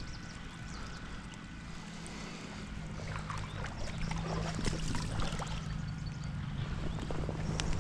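Shallow rocky stream running steadily, with scattered small splashes and handling clicks from a few seconds in as a small trout is unhooked in a landing net.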